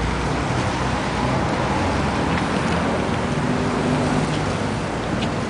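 Steady traffic noise from cars on a city street.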